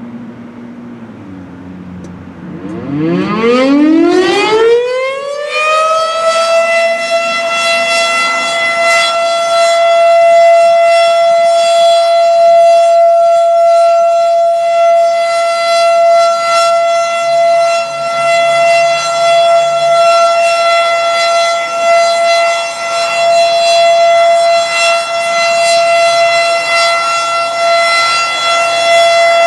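Federal Signal RSH-10 outdoor warning siren winding up: a couple of seconds in, its pitch rises for about three seconds, then it holds one steady high tone, its loudness wavering slightly. A low hum is heard before the wind-up.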